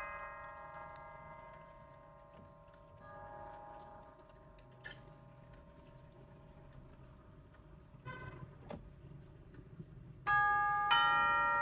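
Tubular chimes of a nine-tube grandfather clock: struck brass tubes ring and slowly fade, leaving a few quiet seconds with faint clicks from the movement. Near the end the tubes are struck again loudly, twice in quick succession.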